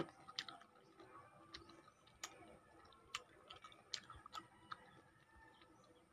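Faint, irregular wet clicks and smacks of a mouth chewing lemon pulp, a sharp click every half second to second.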